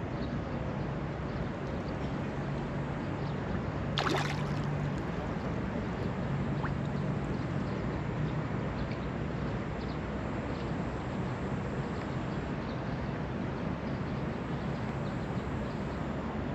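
Steady outdoor background noise: a continuous rushing hiss over a faint low hum, with one brief sharp sound about four seconds in.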